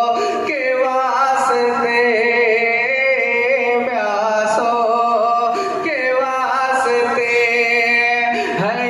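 A man singing a slow devotional chant into a microphone, one amplified voice in long phrases of held notes with sliding ornaments, each phrase lasting about two seconds.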